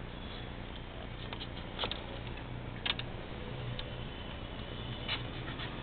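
A few scattered sharp clicks and ticks over a steady low hum.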